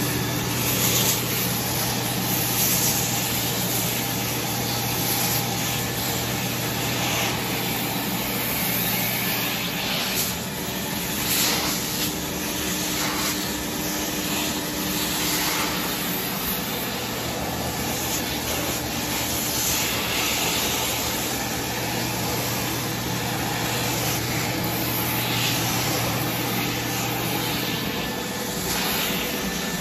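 Upholstery extraction machine running, its vacuum motor giving a steady hum and loud suction hiss as the hand tool draws cleaning water out of the chair's fabric.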